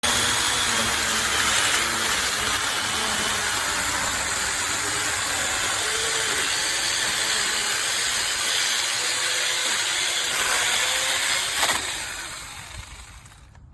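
SEESII 40V brushless cordless chainsaw running with a steady, loud whir and chain noise, starting suddenly and fading out near the end.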